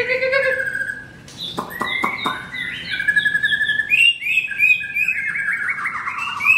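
Male white-rumped shama (murai batu) singing a fast, varied song of chirps, trills and repeated whistled notes. A few sharp clicks come about a second and a half in.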